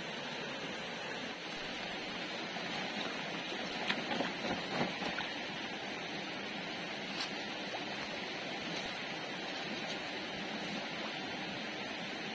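Shallow stream water running steadily over stones, with hands splashing in the water; a short cluster of louder splashes comes about four to five seconds in, and one more a couple of seconds later.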